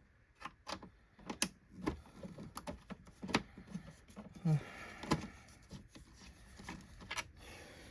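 Irregular clicks and knocks of plastic vacuum-cleaner parts being handled, with a short low creak about four and a half seconds in.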